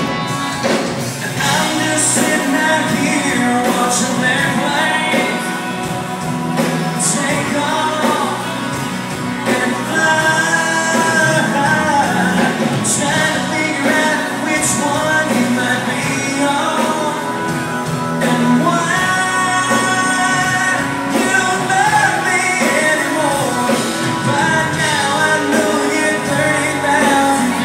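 Live band with keyboard, drums and electric guitars playing a country song while a singer sings, heard from the crowd in a large hall.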